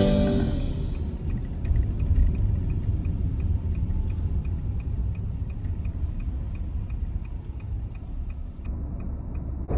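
Car interior rumble from engine and road while driving, with a turn-signal indicator ticking evenly, about two and a half ticks a second.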